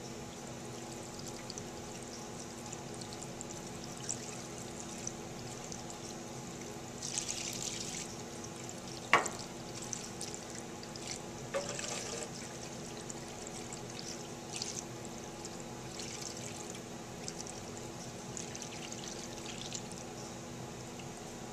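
Molten candle wax poured in a thin stream from a stainless-steel pitcher onto a sheet pan, trickling faintly over a steady background hum. A sharp click about nine seconds in, and a lighter knock around twelve seconds.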